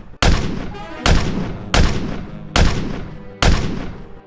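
A series of loud booming impacts, five in all, a little under a second apart, each dying away before the next.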